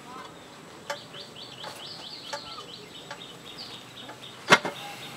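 Bird calling in the background, a quick run of short high chirping notes, with one sharp click about four and a half seconds in.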